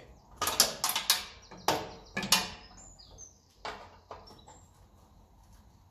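Metal clinks and taps of a socket and wrench being fitted to a bolt on a tractor's radiator bracket: several sharp clinks in the first two seconds, then a few faint high chirps.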